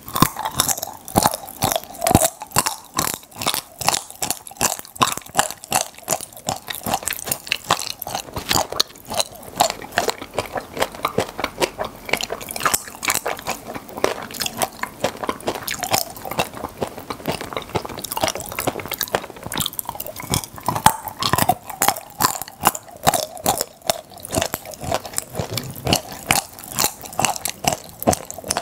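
Close-miked chewing of popping-candy chocolate, with a dense, continuous crackle of tiny pops from the candy bursting in the mouth.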